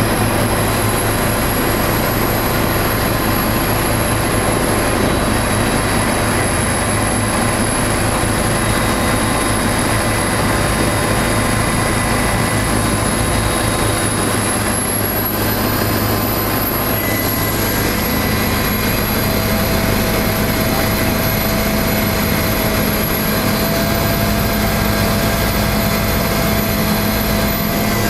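Helicopter engine and rotor heard from inside the cabin: a loud, steady drone with constant tones over it, and one more tone joining about two-thirds of the way in as the helicopter comes down to land.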